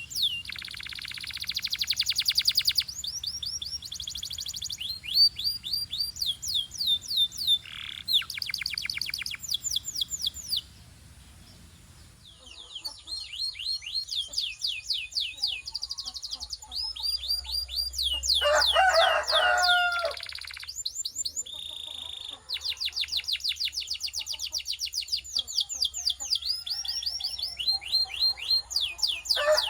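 Canary song: fast runs of repeated high, sweeping notes and trills, broken by a short pause a little over a third of the way in.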